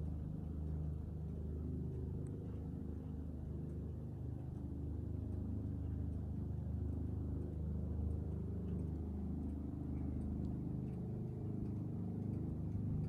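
A steady low engine rumble of a motor vehicle, fairly quiet, with no sudden changes.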